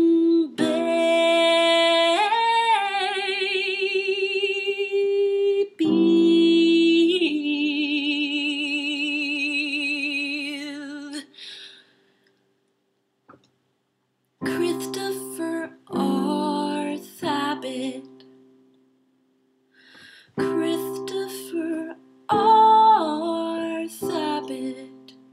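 A woman singing long held notes with a wavering vibrato, the longest fading out about eleven seconds in. After a short pause come a few shorter sung phrases, with plucked string accompaniment.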